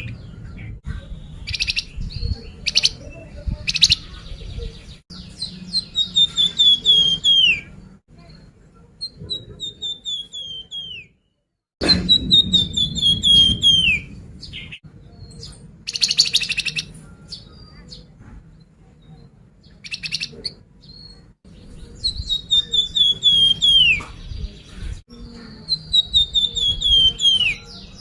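Flamboyan bird lure song: repeated trilling phrases about two seconds long, each sliding down in pitch, with short harsh chattering bursts in between and a few brief pauses.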